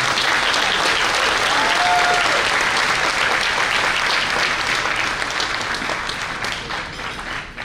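Audience applauding, loud and steady, tapering off near the end, with a single voice briefly rising above it about two seconds in.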